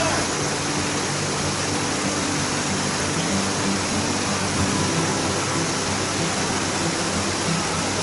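Whitewater rapids rushing, a steady even roar of churning river water.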